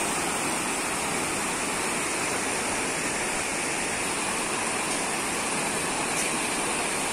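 Steady rushing of river water tumbling over rocks and a low weir.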